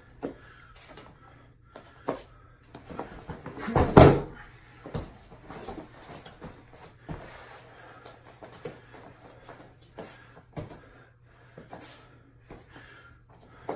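A judo throw landing: a body hits the mat with one loud thump about four seconds in. Smaller knocks and shuffles of bare feet on the mat come before and after it.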